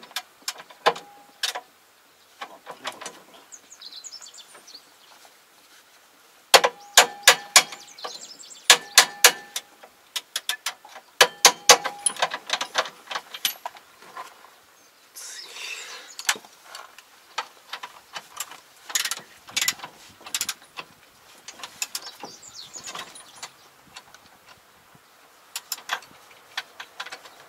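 Hammer blows on steel: runs of sharp, ringing metal strikes, about four a second in bursts, with scattered lighter tool clinks between, as a bent part of a crawler sprayer's track undercarriage is knocked back into shape.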